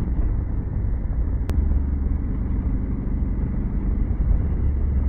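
Motorcycle riding noise: the 2021 Honda Africa Twin's parallel-twin engine running steadily under way, with a deep rumble over a noisy hiss. A single sharp click comes about a second and a half in.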